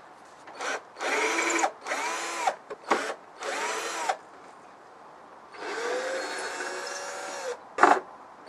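Cordless drill run in four short trigger bursts, each winding up to speed and back down, the last about two seconds long, as it backs the screws out of shelf hooks in a wooden cabinet frame. A few sharp clicks fall between the bursts, the loudest just before the end.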